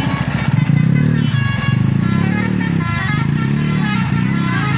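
Motor vehicle engines running steadily, with a high tune of short held notes over them.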